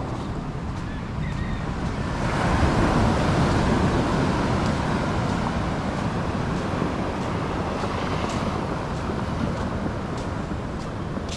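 Ocean surf: a wave breaks and washes up the beach, swelling about two seconds in and then slowly easing off, with wind buffeting the microphone.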